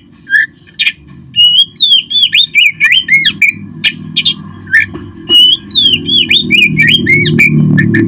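Oriental magpie-robin (kacer) singing hard: a couple of sharp clicks, then from about a second and a half in a fast, unbroken run of sweeping whistled notes mixed with sharp clicks. A low hum sits underneath and grows louder near the end.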